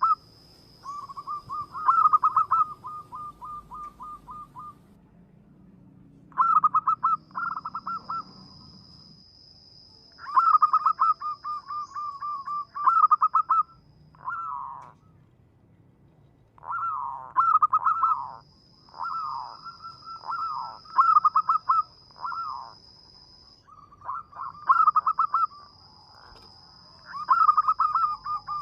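Zebra dove (perkutut) singing its cooing song: phrases of rapid, evenly spaced staccato notes, repeated over and over with short pauses between them.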